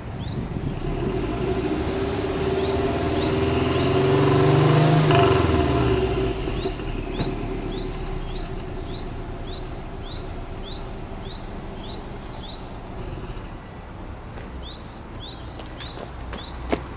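Subaru Impreza WRX's turbocharged flat-four boxer engine, heard at the exhaust, revved once with no load: the exhaust note climbs over about four seconds, peaks loudest about five seconds in, then drops quickly back to a steady idle. A single sharp click near the end.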